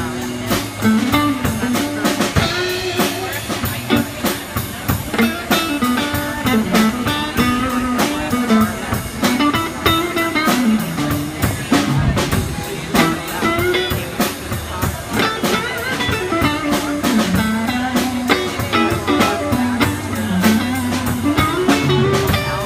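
Blues jam on guitar and drum kit: a guitar line weaving up and down over a steady drum beat.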